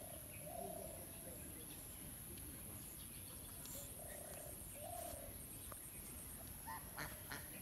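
Quiet outdoor ambience: a steady high-pitched insect drone with an even pulsing trill, and a few short bird calls, one near the start, two about four and five seconds in, and quick chirps near the end.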